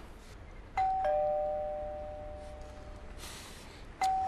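Two-tone ding-dong doorbell rung twice, about three seconds apart: each time a higher note followed by a lower one, left to ring out.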